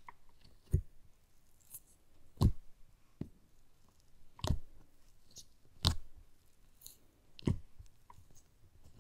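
Fingers poking and pressing into blue glitter slime in a plastic tub, making five sharp pops about every second and a half, with faint crackling between them.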